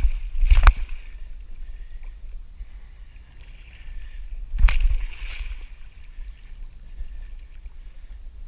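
A kayak paddle jabbing and splashing in the sea, with two sharp knocks, one about half a second in and one near five seconds, over a steady low wind rumble on the microphone.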